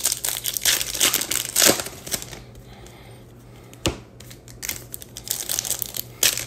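Trading-card pack wrappers crinkling in short irregular bursts as packs are opened and handled, with one sharp tap about four seconds in.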